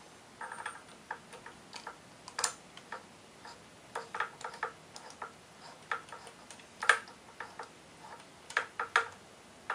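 Light metallic clicks and taps, scattered irregularly with a few quick runs, from hand work on the camshaft sprocket bolt of a Nissan KA24E engine with the timing chain fitted.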